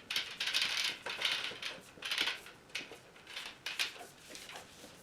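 Coil of flexible compressed-air tubing being handled and stretched out: irregular short scrapes and rustles, one or two a second.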